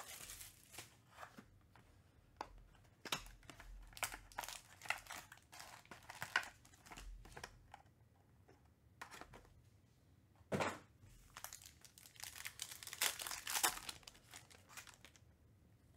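Plastic shrink-wrap crinkling as it is pulled off a trading-card box, then foil card packs crinkling and tearing open. Sharp crackles come in bursts, with a short pause just past the middle and a louder burst soon after.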